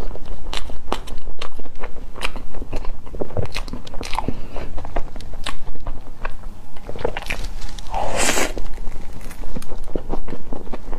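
Close-miked biting and wet chewing of a soft cream-filled crepe pancake, a steady run of small mouth clicks and smacks. A brief, louder hiss comes about eight seconds in.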